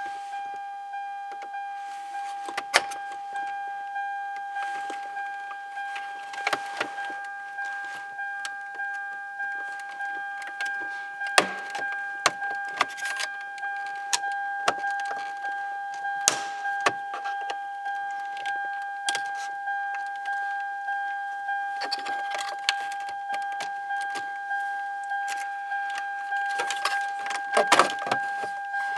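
A car's warning chime dinging over and over at an even rate, the reminder for a key left in the ignition of a 2004 Lexus ES330. Over it come sharp plastic clicks and scrapes as the climate control panel is pried loose from the dash with a pick tool, the loudest about eleven seconds in and near the end.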